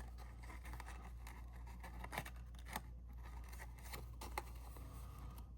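Cardstock being handled by hand: faint paper rustling with a few light clicks and taps as a paper strip is slid through a slit and positioned, over a steady low hum.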